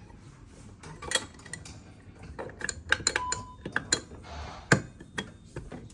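Scattered light metallic clicks and clinks from a manual fire alarm pull station being handled just after it has been pulled, with a short beep a little after three seconds in.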